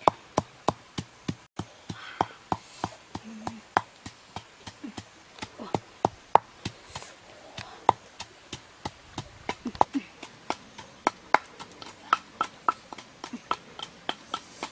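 Wooden pestle pounding food in a mortar, a steady run of sharp knocks at about three strikes a second.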